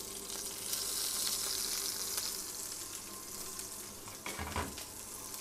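Partridge breasts sizzling steadily skin side down in hot oil in a frying pan. A dull knock about four seconds in, a plate set down on the stainless steel worktop.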